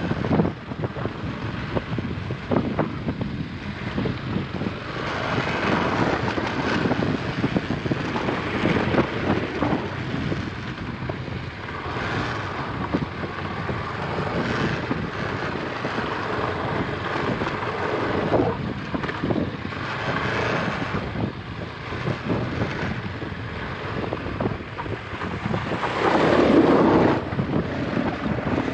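KTM Adventure 250 motorcycle's single-cylinder engine running as the bike rides a rough dirt trail, with wind buffeting the microphone; a louder surge comes near the end.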